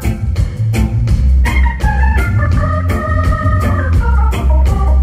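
Live band playing: an organ holding sustained chords over a steady drum beat and heavy bass.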